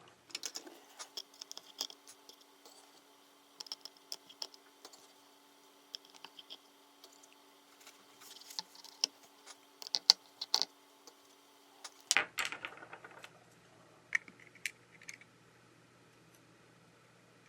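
Small repair tools clicking, tapping and scratching on the opened iPhone 12 Pro Max's internals as the screws and metal plate over the battery connector are removed: scattered light clicks, thickest a little after the middle, over a faint steady hum.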